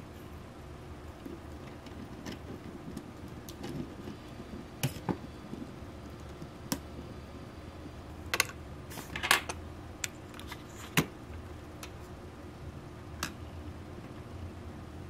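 Plastic parts of a small 3D-printed RC car chassis and its diecast body clicking and knocking as they are handled and fitted together. There are a handful of short sharp clicks, the loudest a quick cluster about nine seconds in, over a steady low hum.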